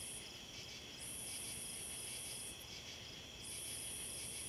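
Night insect chorus of crickets and other insects: a steady high trill, with a higher-pitched buzz that switches on for a second or two and stops, repeating about every two and a half seconds.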